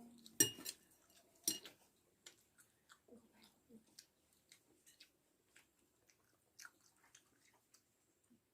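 A person chewing and biting into grilled goat satay close to the microphone. Two sharp clicks come in the first second and a half, followed by many soft, scattered mouth clicks and smacks.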